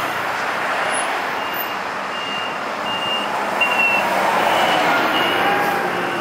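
City road traffic passing close by, a bus among it, with a high electronic warning beep repeating about every two-thirds of a second.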